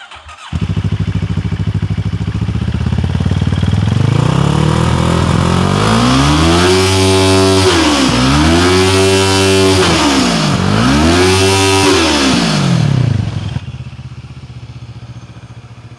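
CFMoto GT650's 649 cc parallel-twin engine revved hard through its side-slung exhaust: the revs climb steadily, then rise and fall three times, and drop back to a quieter idle near the end.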